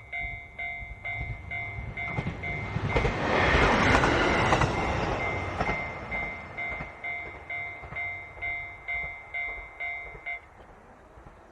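Japanese level-crossing warning bell ringing in a quick, even ding-ding pattern, about three strikes a second, while a JR Hokkaido H100 diesel-electric railcar passes. The train noise swells and is loudest about four seconds in, then fades. The bell stops near the end.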